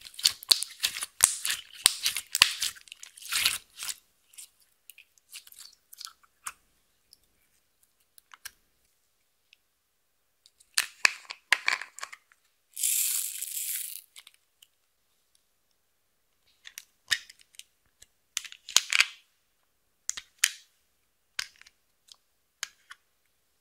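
Hands squeezing and kneading pink slime: wet crackling and popping clicks, dense for the first few seconds and again about eleven seconds in, with a second-long hissing crackle just after, then scattered clicks.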